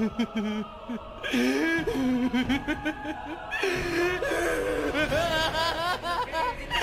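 A man's drawn-out maniacal laughter, an anime villain's laugh used as a meme sound clip, beginning about a second in and going on in bouts over background music.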